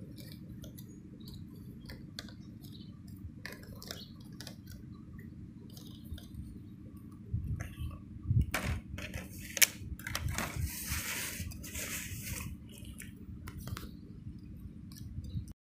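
Strawberries being washed by hand in a bowl of water: light splashing and small knocks of fruit and fingers against the bowl, with a louder stretch of sloshing about ten to twelve seconds in, over a steady low hum. The sound stops abruptly just before the end.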